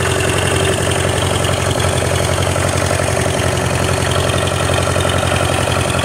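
Old farm tractor's engine running steadily, heard up close.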